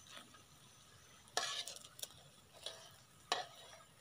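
Metal tongs scraping and clacking against a metal frying pan while lifting fried swamp cabbage fritters from the oil. There are a few short strokes, the loudest a little over a second in and a sharp knock near the end, over faint sizzling oil.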